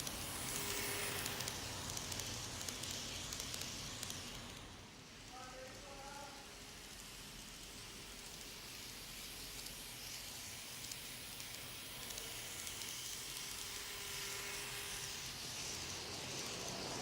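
Faint steady hiss, with a few brief faint pitched sounds about five to six seconds in.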